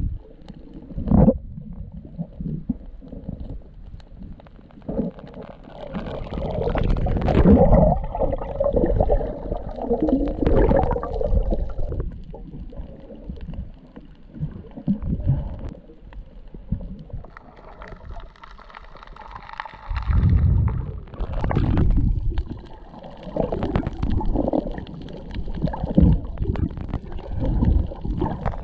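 Muffled water noise picked up by a submerged camera: low, uneven rumbling that swells and fades, with a few short knocks.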